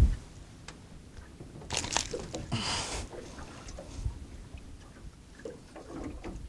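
Close handling noise as a golden dorado is held up with a plastic lure in its jaw: scattered small clicks and rustles, with a brief scraping hiss about two and a half seconds in.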